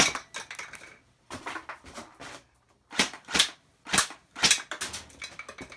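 Airsoft rifle firing single shots: about five sharp cracks, irregularly spaced a half second to a second or more apart. Between them come lighter clicks and knocks as plastic pin targets are hit and topple.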